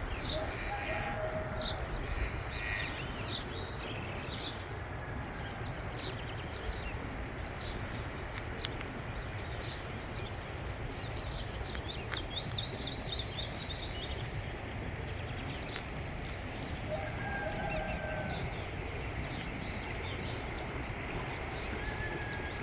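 Many wild birds calling, with short high chirps throughout. A lower call comes twice, near the start and about 17 seconds in. A steady outdoor background hiss runs beneath.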